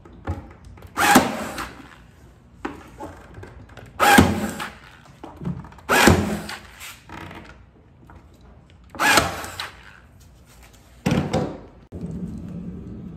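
Bielmeier electric staple gun firing short brad nails into a wooden strip on a buffet: several sharp shots two to three seconds apart, with fainter clicks of the tool between them.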